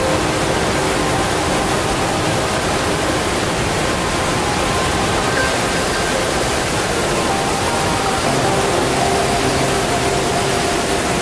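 Steady rushing of whitewater rapids on the Niagara River, water tumbling over rocks in a continuous even noise.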